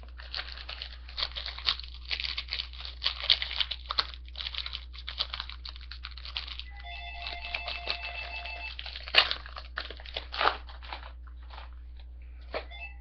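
A foil trading-card pack being torn open and its wrapper crinkled and crunched, with rapid crackling that thins out in the last couple of seconds. A short electronic chime of repeated steady tones sounds about seven seconds in.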